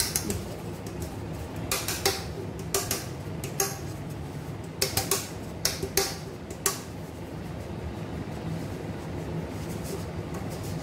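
A metal cake tin tapped and knocked lightly as it is tilted to spread dry flour over its greased inside: a scatter of short taps in the first seven seconds or so, over a steady low hum.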